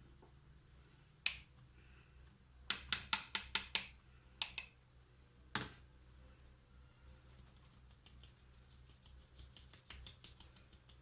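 Sharp taps of a kitchen utensil against a mixing bowl while flour is added to cake batter: a quick run of about seven taps, a few single taps, then fainter rapid ticking.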